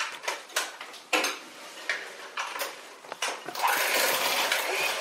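Dishes and kitchen utensils clinking and knocking on a counter, a string of separate sharp clacks. About three and a half seconds in, a steady rushing noise starts and runs until near the end.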